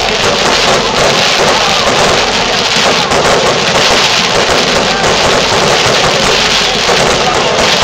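Ground-mounted firework fountains spraying sparks, a loud steady hiss with fine crackle.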